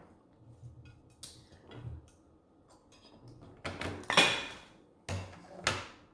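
Handling noise: a string of knocks and bumps as a propped-up support is taken down from the table, the loudest about four seconds in.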